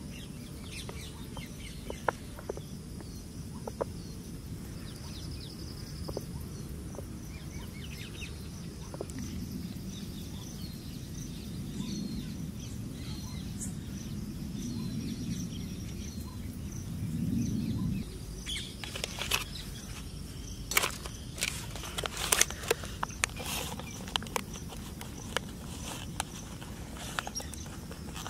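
Plastic cups and foil food trays being handled on a metal tray: a run of sharp clicks and knocks starting about two-thirds of the way through, over steady outdoor background noise.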